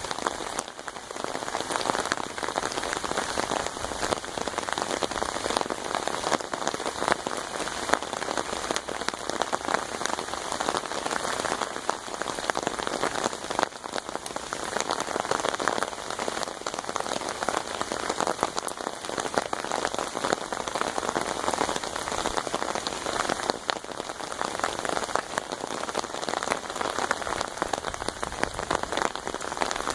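Steady rain drumming on an umbrella: a dense, continuous patter of drops.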